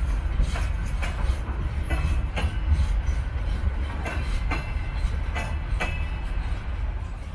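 Freight train of open-top gondola wagons rolling past, its wheels clacking over a rail joint with a steady low rumble beneath. The clacks come in pairs, several pairs in a few seconds, as each wagon's bogies cross the joint.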